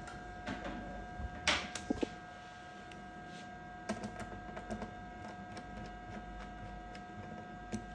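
Scattered sharp clicks and taps, the loudest about a second and a half in and a small cluster about four seconds in, over a steady high electrical whine.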